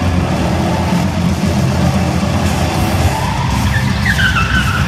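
Loud arena show music mixed with stunt motorcycle engines revving; near the end a short, wavering, falling whine rises above the music as a bike spins.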